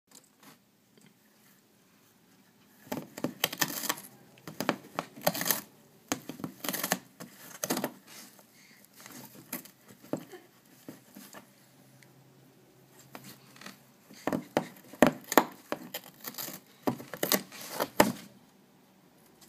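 Cardboard crunching and ripping as a cat bites and tears at the ragged edge of a hole in a cardboard box from inside. The tearing comes in quick bursts, in one spell a few seconds in and another near the end, with a quieter stretch between.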